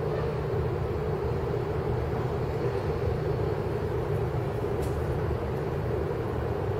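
Steady outdoor background rumble with a low hum and no change in level; the nesting pigeon makes no audible sound. A faint short high tick comes about five seconds in.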